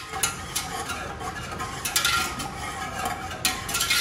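A whisk stirring thickening mustard pickle sauce in a pot, with quick, irregular clinks and scrapes against the pan. The sauce is being stirred constantly to keep it from scorching while it heats toward the point where it gels.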